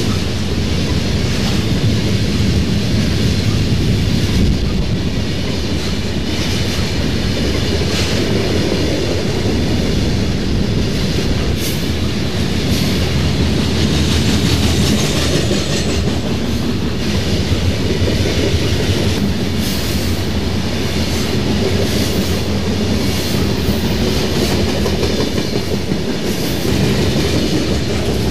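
HO scale model freight cars rolling past on the track: a steady rumble of small metal wheels, with scattered light clicks over the rail joints.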